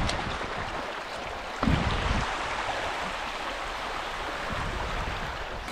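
Shallow river riffle rushing steadily over rocks, with a low thump about one and a half seconds in.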